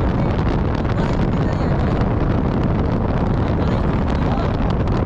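Wind buffeting the microphone of a camera on a moving motorcycle, a steady low rumble mixed with the bike's running and road noise.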